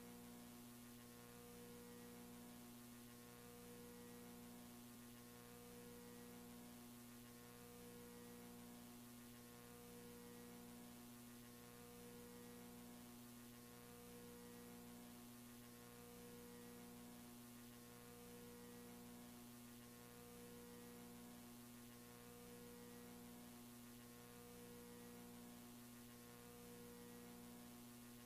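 Faint steady low hum, with a second tone that swells and fades about every two seconds.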